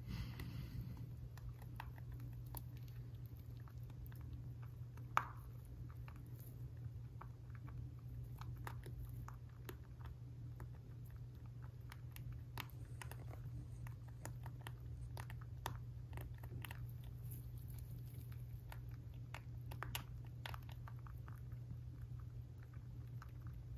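A young rabbit chewing dry food pellets eaten from a hand, heard close up as a steady run of small crunchy clicks, with one sharper click about five seconds in. A steady low hum lies underneath.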